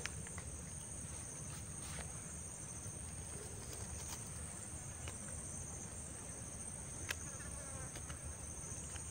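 Steady, high-pitched chorus of insects such as crickets or cicadas droning without a break, over a low steady rumble, with a few faint clicks, the sharpest about seven seconds in.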